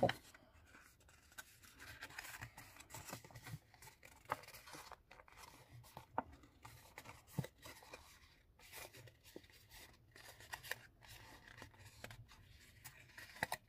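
Faint rustling and crinkling of folded patterned paper handled by hand, with scattered light taps and clicks as the box's side is pressed into place.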